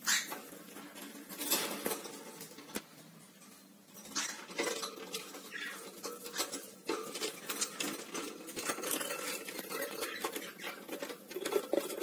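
Cockatiel clambering and flapping on a wire cage, its claws and beak clicking and rattling against the metal bars. There is a flurry at the start and another about a second and a half in, then near-continuous clicking from about four seconds in.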